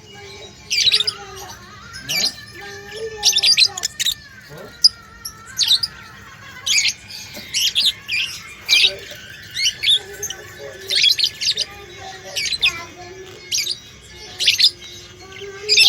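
Budgerigars chirping and squawking in short, sharp calls, one about every second.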